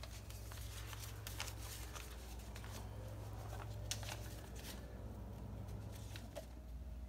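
Old paper being handled: a letter and its envelope and the pages of a bound minute book rustling in short, irregular crinkles, over a steady low hum.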